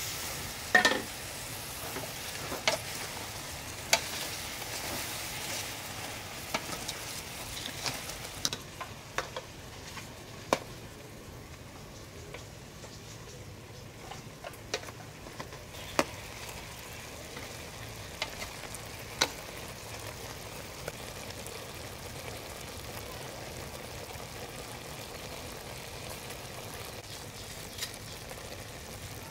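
Pork belly and duck eggs simmering in a sugary braising liquid in a pot: a steady bubbling sizzle, stirred with a wooden spoon, with sharp clicks and knocks scattered through it every second or few.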